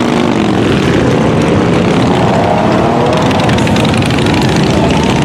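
A pack of motorcycles riding, many engines running together in a dense, steady drone, with one engine note rising and falling around the middle.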